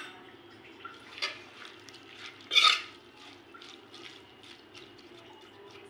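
A metal spoon stirring wet chopped spinach, tomato and lentils in water in a steel pressure cooker, with scattered scrapes and clinks against the pot. There is one louder clatter about two and a half seconds in.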